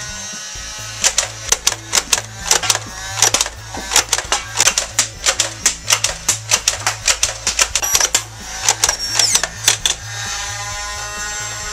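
Buzz Bee Mech Tommy 20 battery-powered dart blaster firing: a rapid run of sharp clicking shots, about three to four a second, over the whir of its motor, which runs alone at the start and again near the end. Background music plays throughout.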